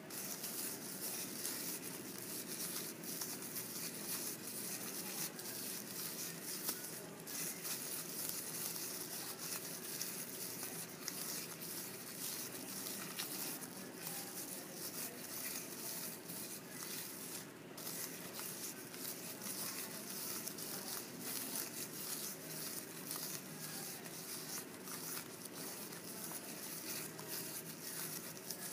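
A thin plastic shopping-bag strip crinkling and rustling continuously as it is handled and wound by hand into a ball of plastic yarn (plarn).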